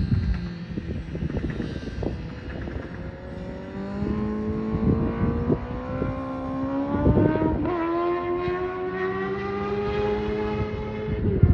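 Distant Honda CBR1000RR SP sportbike's inline-four engine running hard on the track, its pitch climbing steadily through the middle and then holding high. Irregular low thumps of wind buffeting the microphone.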